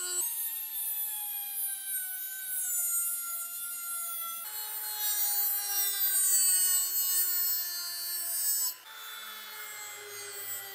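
Rotary tool with a thin cut-off disc grinding grooves into a wooden knife handle. The motor gives a high whine whose pitch sags slowly as the disc bites, over a gritty cutting hiss. The whine breaks off twice and resumes at a different pitch.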